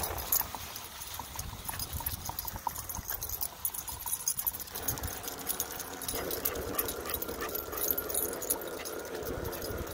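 Leashed cockapoo and husky trotting alongside, with dog panting and many small clicks and jingles from collar tags and paws. A low wind rumble sits on the microphone underneath, and a faint steady whine comes in about six seconds in.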